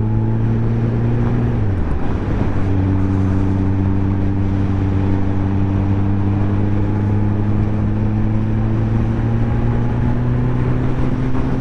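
Motorcycle engine running on the road under a steady rush of wind noise. Its note drops sharply about a second and a half in, then holds and climbs slowly and steadily.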